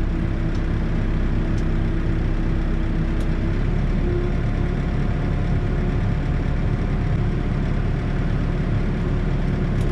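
New Holland backhoe loader's diesel engine running steadily while the backhoe works, with a steady tone over the engine that shifts in pitch about a third of the way through.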